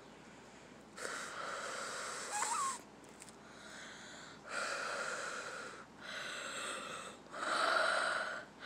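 Breathing while blowing a large bubble-gum bubble: four noisy, wheezy breaths of about a second each, with a short squeak during the first.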